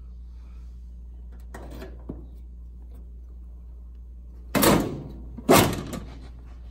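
Sheet-metal lower access panel of a vintage Coroaire WM-90 wall furnace being opened and lowered: a light rattle about a second and a half in, then two loud clunks about a second apart near the end, each trailing off over about half a second.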